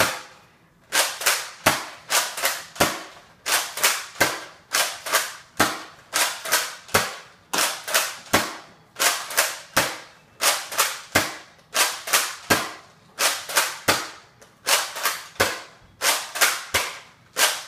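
Nerf N-Strike Elite Retaliator, a spring-powered pump-action dart blaster, primed and fired again and again until its 12-dart stick magazine is empty. It makes a steady run of sharp plastic clacks, a close pair for each prime and shot, about every second and a half.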